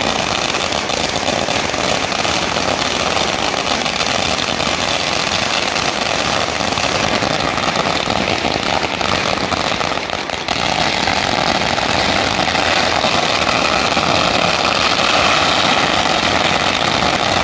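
A long string of firecrackers going off in a dense, unbroken crackle of rapid bangs. It eases for a moment about ten seconds in, then carries on just as loud. The firecrackers are the send-off for a temple procession setting out.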